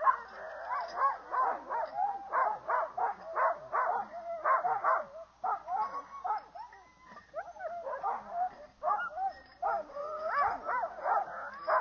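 A team of sled dogs in harness barking, yipping and whining in many overlapping calls that rise and fall in pitch. This is the eager clamour hitched sled dogs make while waiting to run.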